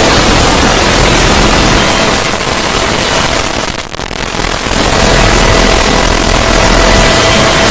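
The 'void' sound effect: a loud, harsh static-like noise spread evenly across all pitches, with faint steady tones under it. It briefly sinks about halfway through, then swells back to full strength.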